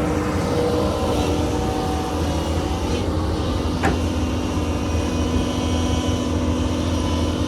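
Doosan excavator's diesel engine running steadily under work, a deep continuous rumble with a steady hum above it. A single sharp knock about halfway through.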